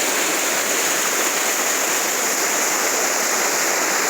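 Steady rushing of a waterfall and the brook below it, a constant loud wash of falling and flowing water.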